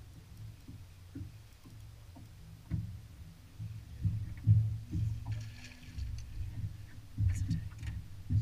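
Irregular low knocks and thumps on a bass boat's deck and hull as an angler fights a hooked smallmouth bass, with a few short splashy sounds near the end as the fish comes up by the boat.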